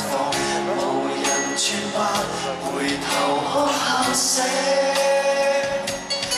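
Live pop music from a band with male singing over it, and cymbals splashing through, as heard in a concert hall.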